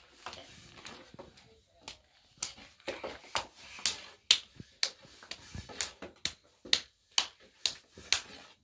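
Bread dough being worked by hand: a string of sharp, irregular slaps and taps, about two a second, starting a couple of seconds in and stopping near the end.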